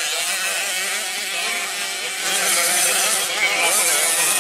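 Small 65cc two-stroke motocross bikes revving as they ride the dirt track, their engine pitch rising and falling, with a swell in loudness about halfway through.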